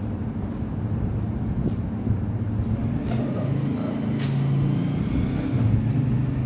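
Gift wrapping paper and packing tape being handled, rustling and crinkling, with a short sharp rip of tape about four seconds in, over a steady low engine-like hum.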